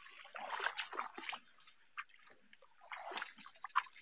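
Faint, irregular small splashes and dribbles of water.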